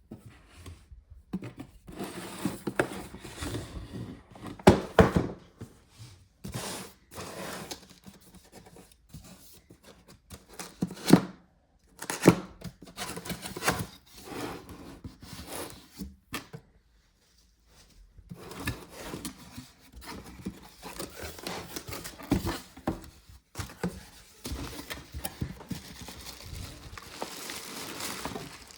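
Packaging being opened and handled: cardboard and tape tearing, scraping and rustling of wrapping, with irregular knocks, the loudest about five and eleven seconds in. There is a brief pause near the middle.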